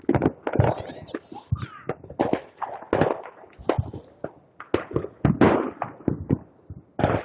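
Fireworks going off: a quick, uneven string of sharp bangs and pops, with a crackling fizz about a second in.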